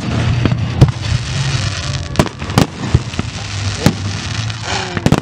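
Aerial firework shells bursting: a run of about seven sharp bangs at irregular intervals, roughly one a second, two of them close together near the end.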